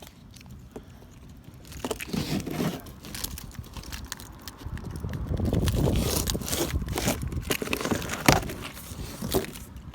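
Cardboard shipping box being worked open by hand: scraping, crinkling and irregular knocks of cardboard and packing, starting about two seconds in, busiest in the second half, with one sharp knock near the end.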